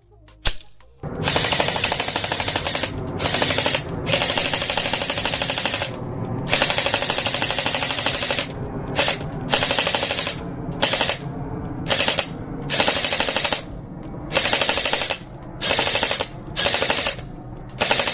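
Full-auto gel ball blaster firing a rapid stream of shots in repeated bursts of one to two seconds, with short pauses between them.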